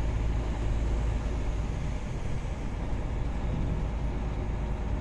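Steady low engine rumble and tyre-on-road noise of a vehicle driving at a steady pace, heard from inside the cab.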